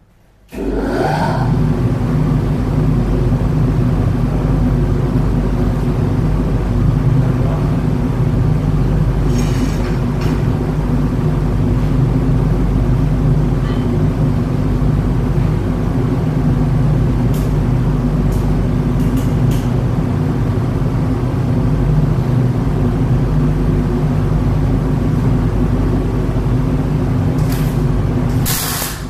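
Fume extractor fan switched on: its motor spins up with a short rising whine about half a second in, then runs loudly and steadily, a humming rush of air. A few brief hisses sound over it.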